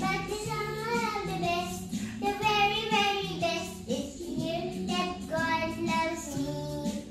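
A young girl singing a song in held, wavering notes, with a backing track of steady low notes beneath her voice.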